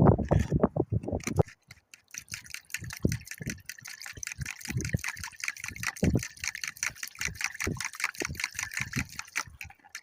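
Quick wet clicking and splashing of water, many small strokes a second.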